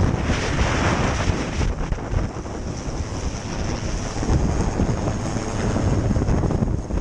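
Strong storm wind buffeting the microphone, a dense rumbling rush that surges and eases unevenly.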